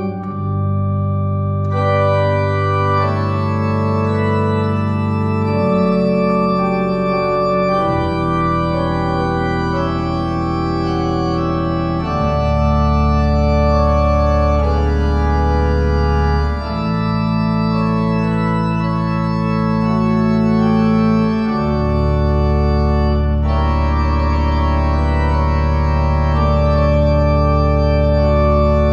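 Organ playing slow, sustained chords, the held bass note changing every few seconds.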